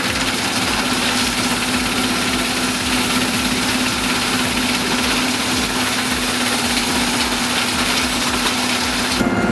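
A machine's engine running steadily under a dense mechanical din, starting suddenly at a cut and changing at another cut near the end.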